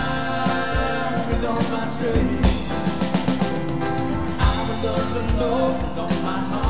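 Contemporary worship band playing an instrumental passage between sung lines, with piano, guitar and a drum beat.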